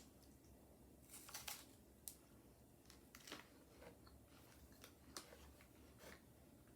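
Near silence with a few faint crinkles and small clicks, scattered and quiet: a torn snack wrapper being handled and a chocolate-covered caramel wafer bar being bitten.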